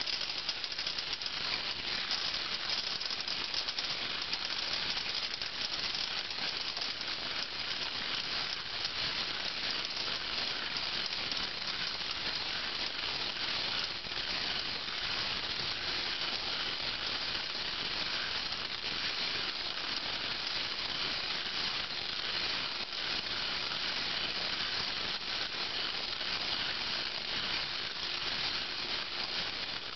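Meccano-built rotating drum separator tumbling a load of small steel nuts and bolts: a steady, dense metallic rattle. The nuts drop out of the drum onto a metal tray, sorting them from the bolts.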